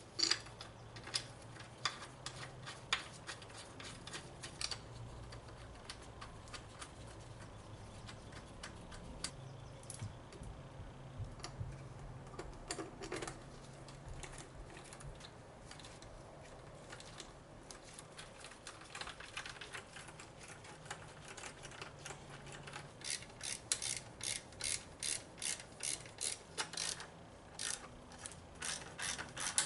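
Ratchet wrench clicking on bolts, with scattered clicks and taps of tools on metal at first, then a steady run of ratchet clicks at about two or three a second near the end.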